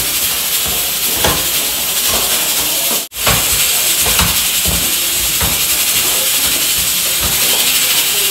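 A steady high hiss, with a few short knocks and handling noises as raw chicken pieces are tossed with seasoning by hand in an aluminium pot. The sound cuts out for a moment about three seconds in.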